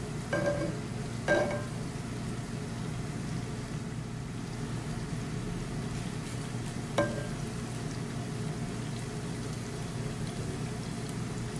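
Spirals of mushabbak dough deep-frying in hot oil with a steady sizzle. Three short metallic clinks of a utensil against the pan, two near the start and one about seven seconds in.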